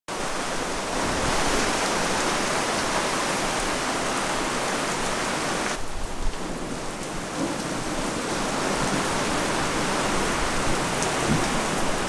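Heavy rain falling steadily, an even hiss with a brief dip about halfway through.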